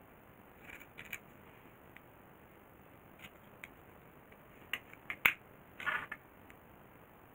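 Scissors snipping adhesive tape off a roll in a few short cuts. About five seconds in there is a sharp clack as the scissors are set down on the wooden table, followed by a brief rustle of tape being handled.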